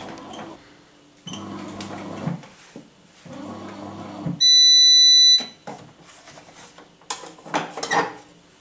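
Bread machine beeping: one loud, high electronic tone about a second long, the signal that its dough program has finished. Before it come two brief low hums, and light clatter follows near the end.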